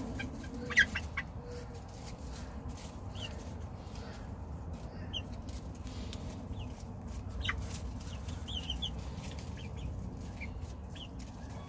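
A small flock of young chickens making soft, scattered clucks and short chirps now and then, over a low steady background rumble.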